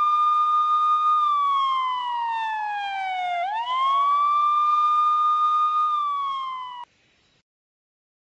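Emergency vehicle siren wailing: a single tone that holds, falls slowly, swoops back up about halfway through, then cuts off suddenly about seven seconds in.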